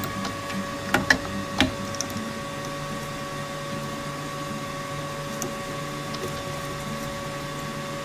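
A few sharp metallic clicks and knocks about a second in as a diesel injector is seated in an injector test bench, over a steady electrical hum from the shop equipment.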